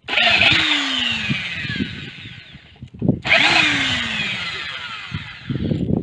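Power drill backing rusty screws out of old chipboard, run twice for about three seconds each with a short break between, its pitch falling during each run.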